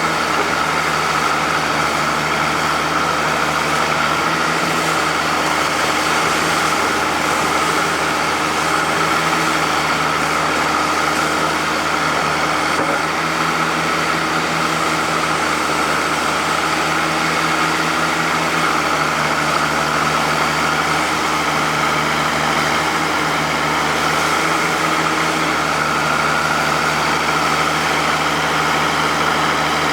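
Oliver 88 backhoe's engine running steadily at an even speed.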